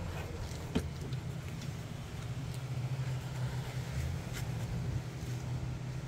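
Electric drive motors of a remote-control beach fishing cart running with a steady low hum, with a sharp click a little under a second in.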